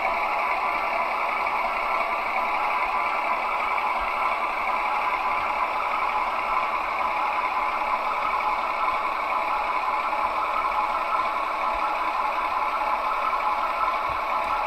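Diesel engine sound from the sound decoder of a Gauge 1 model DB V 160 diesel locomotive, played through the model's small loudspeaker as it runs along the track: a steady engine drone with light clatter and little bass.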